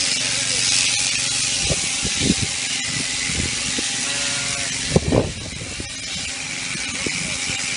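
Shaft-driven sheep shearing machine running steadily: a constant buzzing hum under a hiss from the cutter. A few short, louder sounds break in about two and five seconds in.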